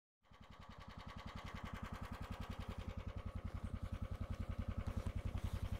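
A small vehicle engine running with a steady low throb of fast, even pulses, growing gradually louder.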